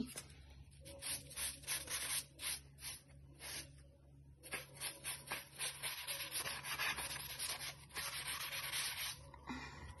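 Kitchen sponge scrubbing wet, soot-stained glazed stove tiles in quick back-and-forth strokes, about two to three a second, with a brief pause partway through.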